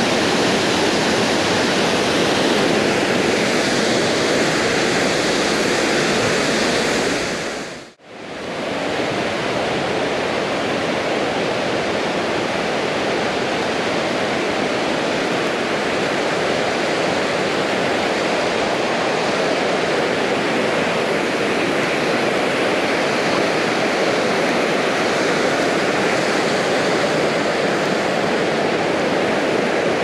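Steady rush of a waterfall running full after plenty of water. The sound fades out and back in about eight seconds in, then a fast, rocky mountain river rushes steadily.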